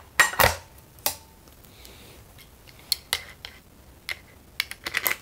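Sharp metallic clicks and clacks of a Springfield (J. Stevens Arms) 12-gauge double-barrel shotgun's break action being worked by hand, the tight action snapping, about ten clicks at uneven intervals with a cluster near the end.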